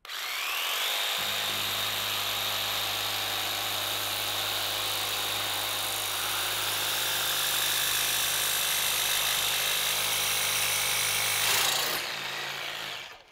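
Cordless jigsaw with a metal-cutting blade sawing through thin stainless steel sheet. A high whine rises as the motor spins up in the first second, runs steadily through the cut, and winds down near the end.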